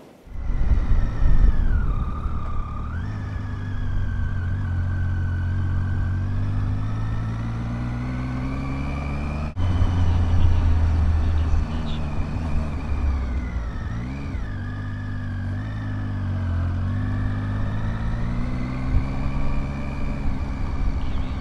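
Triumph Tiger 800 motorcycle's three-cylinder engine running under way, its pitch climbing and easing off with the throttle as it rides along.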